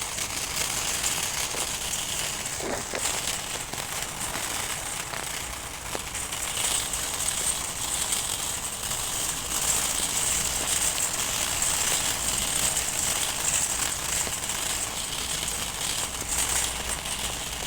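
Steady crackling hiss, strongest in the high treble.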